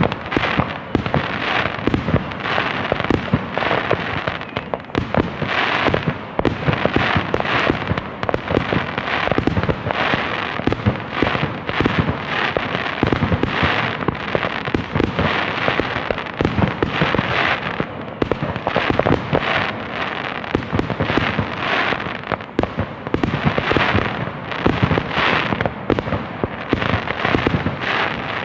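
Fireworks going off: a dense, unbroken barrage of crackling and popping, with louder bursts every second or so.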